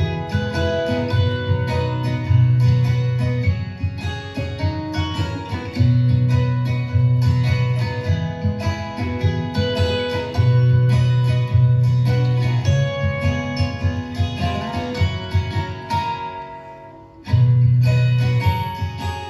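Instrumental background music with a steady, repeating bass line. It fades away about sixteen seconds in and comes back about a second later.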